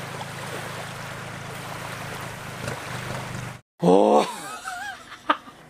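A steady wash of noise with a low hum beneath it. It breaks off suddenly a little over halfway through, and a man's loud groan follows, with a short click near the end.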